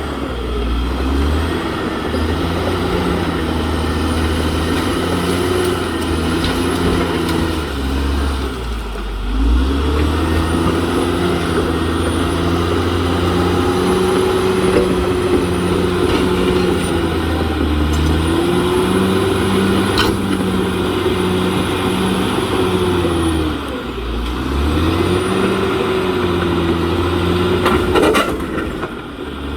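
CAT D6R XL bulldozer's diesel engine working under load. Its pitch sags sharply twice, about nine seconds in and again near twenty-four seconds, and climbs back each time, with a faint high whine above it.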